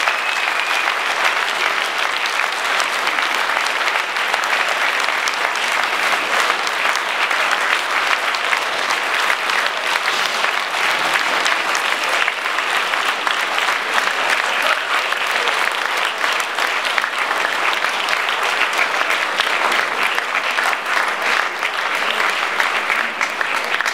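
A room full of people applauding: loud, steady clapping that goes on without a break.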